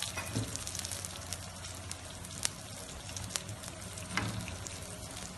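Feteer dough, greased with ghee, sizzling on a hot metal baking tray: a steady frying hiss scattered with small crackles and a few louder pops while the underside browns.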